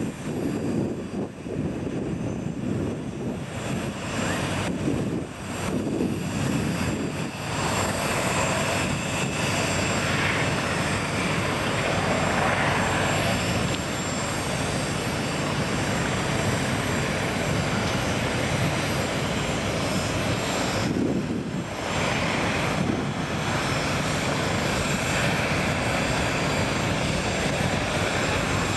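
Airbus Helicopters EC145 T2 in flight: a steady rotor and turbine noise with a thin high whine from its turbines and shrouded Fenestron tail rotor. It grows louder over the first several seconds as the helicopter comes closer, then holds steady.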